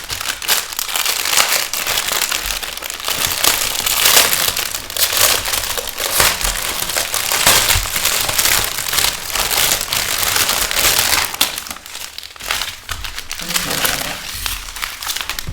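Plastic packets of diamond-painting drills crinkling and rustling as they are handled, with a continuous crackle of many quick small rustles.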